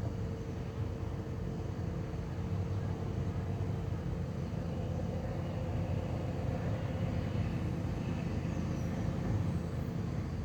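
A steady low engine rumble with a faint steady hum over it, unchanging throughout.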